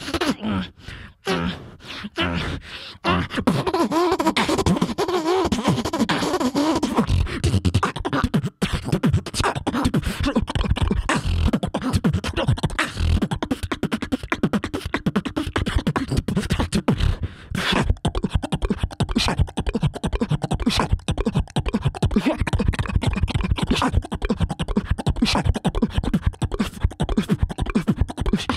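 Solo human beatboxing through a microphone and PA. It starts with a few sparse drum-like hits, then from about three seconds in settles into a dense, fast beat. For a few seconds early in the beat a wavering pitched tone runs over it.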